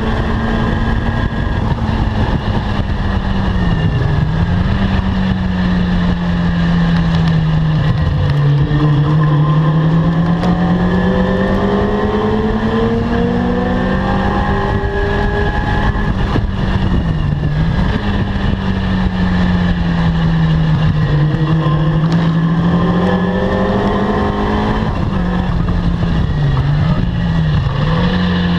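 Caterham R300 sports car engine running hard on a circuit. The pitch rises and falls steadily with the revs, with short sharp dips about four seconds in, about seventeen seconds in, and a few in quick succession near the end.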